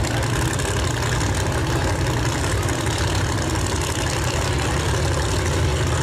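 Two drag race cars' engines idling together while staged at the starting line, a steady deep rumble with no revving.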